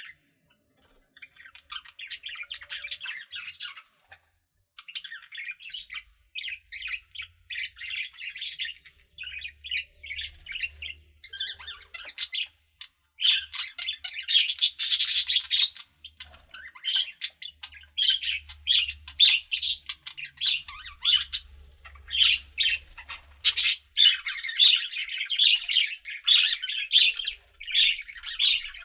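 Budgerigars chattering softly in bouts of rapid, scratchy chirps and warbles, the relaxed contented chatter of budgies at rest. A short pause comes about a second in and another about four seconds in; the chatter is densest near the end.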